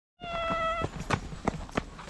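A cat's single meow, held at an even pitch for well over half a second, followed by a few short sharp clicks.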